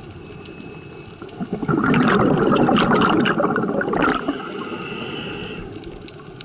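Washing machine water sloshing and splashing: low and steady at first, loud and churning from about a second and a half in for some three seconds, then quieter, with a thin high tone for about a second near the end.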